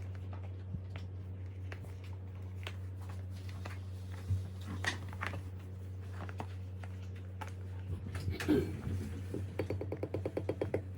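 Small scattered clicks and smacks of a baby eating, over a steady low hum. About eight and a half seconds in comes a short vocal sound, then a quick run of rapid pulses near the end.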